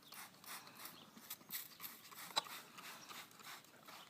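Faint, rapid panting, about three to four breaths a second, like a dog's, with one sharp click a little past halfway.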